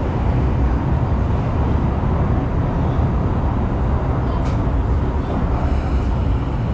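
Steady low rumble of a moving East Rail line mid-life refurbished Metro-Cammell electric train, heard from inside the passenger car. There is one faint click about four and a half seconds in.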